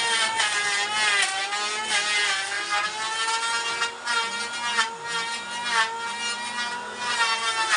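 A handheld power tool's motor runs with a steady high whine while working wood. Its pitch sags briefly several times, as the tool bites in under load.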